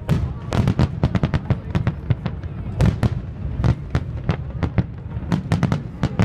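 Aerial fireworks display: a rapid, irregular run of sharp bangs and crackles from bursting shells, several a second, over a steady low rumble.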